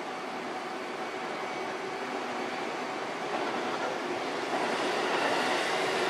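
Sanyo Electric Railway 5000-series electric train approaching the level crossing. Its running noise rises steadily and is loudest near the end as the train reaches the crossing.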